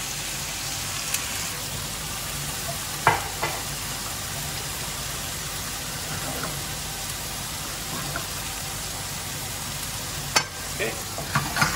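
Wire whisk stirring a thick flour-and-butter roux in a frying pan as chicken stock is worked in a little at a time, over a steady sizzle of chicken frying in pans on the stove. A sharp knock of the whisk on the pan about three seconds in, and several more near the end.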